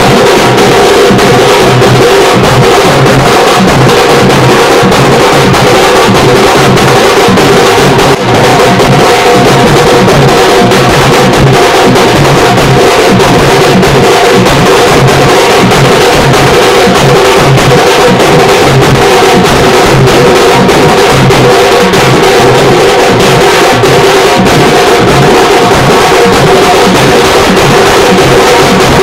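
Loud music built on fast, dense drumming on large stick-beaten drums, with a steady held tone running above the beat.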